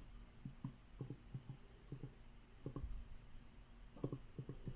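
Typing on an Apple Magic Keyboard for iPad Pro: soft, irregular key clicks from its scissor-switch keys, coming in small quick runs.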